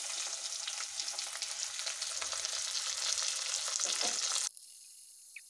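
Spice paste, tomatoes and onions sizzling in hot oil and ghee in a wok, a steady crackling hiss that cuts off abruptly about four and a half seconds in.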